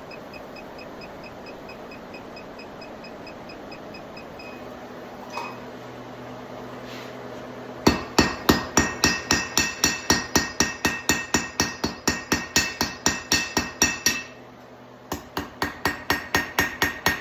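Hand hammer striking hot steel on an anvil in quick even blows, about four a second, with a ringing note on each strike: a run of about six seconds, a brief pause, then a couple of seconds more. The blows are setting a forge weld on the borax-fluxed tail of a small forged steel snail.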